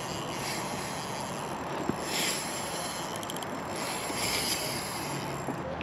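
Spinning reel's drag giving line in a few short hissing spurts, with a quick run of clicks in the middle, as a large bluefish pulls against 8-pound-test line. A steady hiss of wind and water runs underneath.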